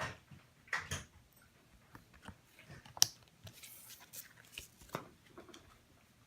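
Baseball trading cards and their packaging being handled: scattered light rustles and taps, with one sharp click about three seconds in and a brief crinkling rustle just after it.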